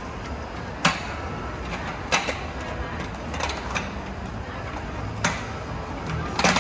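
Aluminium slatted tabletop knocking and clattering on a folding camping wagon's frame as it is fitted and pressed into place: about five short, sharp knocks spread a second or so apart, over a steady background hum.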